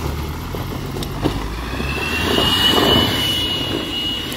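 Tata Safari 4x4 diesel SUV running under load as its snow-chained tyres spin in mud and slush, spraying it behind, with a steady high whine from about one and a half seconds in.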